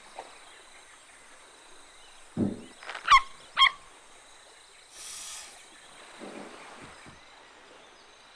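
Cartoon sound effects: a soft thump about two and a half seconds in, then two short, wobbly, honk-like squeaky calls, then a brief hiss about five seconds in.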